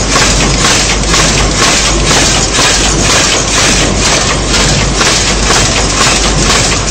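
DGM 1450SL automatic folder gluer running, feeding and folding crash-lock-bottom carton blanks: a loud, steady mechanical clatter with a fast, even beat.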